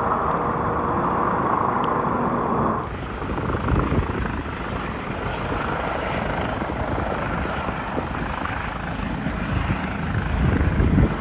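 Rescue helicopter hovering while winching a person, its rotor sound steady. The sound changes abruptly about three seconds in, into a noisier low rumble that surges now and then.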